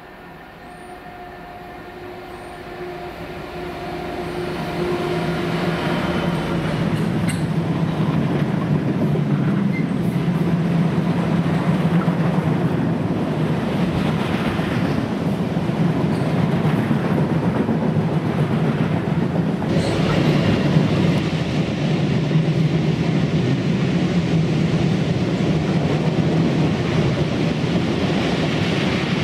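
Class 66 diesel locomotive's two-stroke EMD engine humming as it approaches, growing steadily louder over the first six seconds. A long train of cement tank wagons then rolls past with a continuous rumble and the clickety-clack of wheels on the rails.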